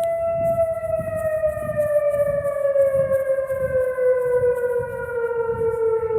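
Whelen outdoor tornado warning siren sounding for a test: one loud, steady tone that slowly falls in pitch.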